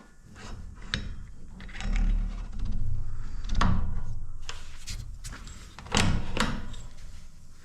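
Workshop handling noises: scattered knocks and clunks, with a few heavier low thuds about two, three and six seconds in.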